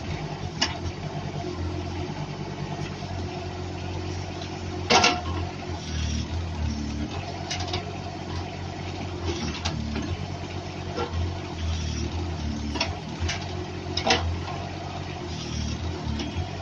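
Small three-cylinder Kubota diesel of a 1.8-ton mini excavator running steadily, its note swelling and easing as the hydraulics work the boom and bucket. Sharp knocks from the digging arm come every second or two, the loudest about five seconds in.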